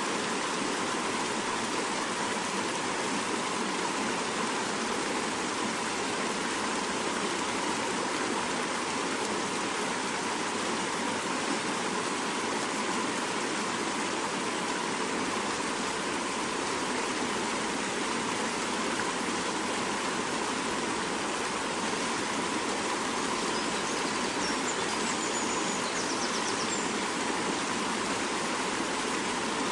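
Swift mountain river rushing steadily.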